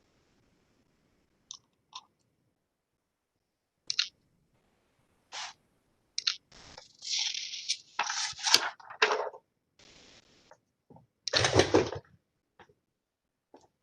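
Scattered clicks, crackles and rustling close to a microphone, busiest in the middle, with one louder rustling burst near the end.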